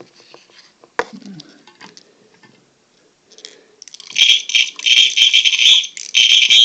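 A few light clicks and handling noise, then a Simplex fire alarm horn starts sounding about four seconds in. Its high tone is broken up at first and holds steady near the end.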